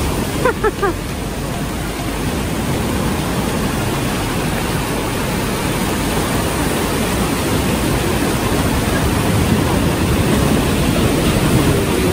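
Surf breaking and washing up a sandy beach: a steady rushing noise. About half a second in, a few short falling chirps sound briefly over it.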